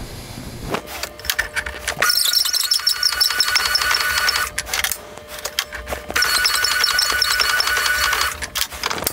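A machine spindle runs a cutting or honing tool in a two-stroke jet-ski cylinder bore, twice for about two seconds each time, with a shrill, steady squeal of metal being cut. Before the first run there are scattered metallic clicks and knocks from handling the tool.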